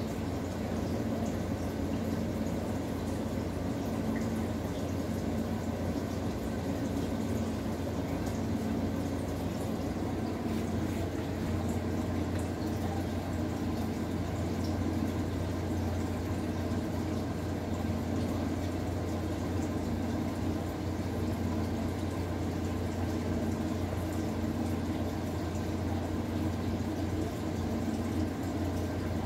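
Aquarium water bubbling steadily as a curtain of air bubbles rises through the tank, over a steady low hum.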